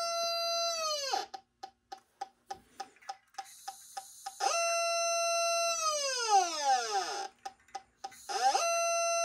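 Funtin Home FT-HG-03 handheld gas detector's alarm: a steady high tone that glides down in pitch about a second in and breaks into rapid beeps, about three a second, then rises back to the steady tone twice more. The tone and beep rate follow the gas concentration at the probe: a steady tone for a pegged reading, falling pitch and slower beeps as the concentration drops.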